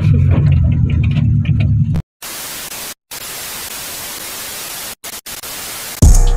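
Engine and road noise inside the cab of a moving Suzuki Carry pickup, cut off after about two seconds by a hiss of TV static with a few brief dropouts. Near the end a loud, deep bass hit lands.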